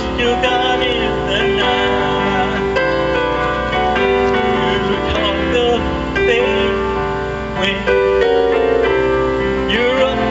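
A man singing into a microphone over electronic keyboard accompaniment, both amplified through stage speakers.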